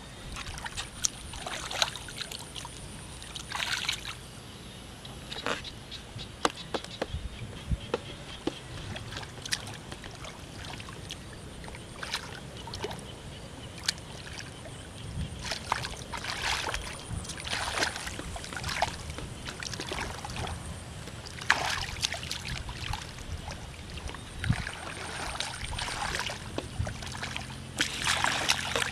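Hands groping and scooping through mud and shallow water, making irregular splashes and sloshing.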